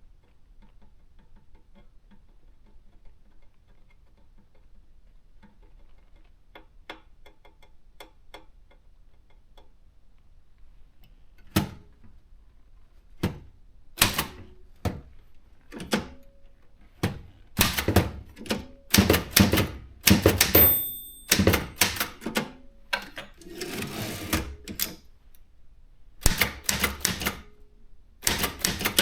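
Brother JP 1 typewriter being typed on. For the first ten seconds or so there are only faint small clicks, then loud, sharp key strikes begin in quick runs and clusters. Near the middle of the typing there is a brief high tone, and a few seconds later a longer rattling stretch.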